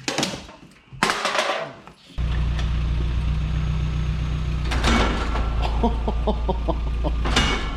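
A small 4x4's engine starts about two seconds in and runs steadily, with two sharp knocks and a spell of rapid ticking over it. The vehicle is running with a blown transfer case.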